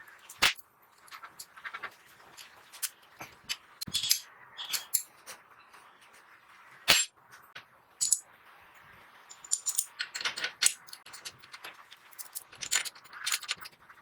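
Irregular metallic clicks, clinks and light knocks of metal parts and tools being handled, with the sharpest strikes about half a second in and around seven and eight seconds in.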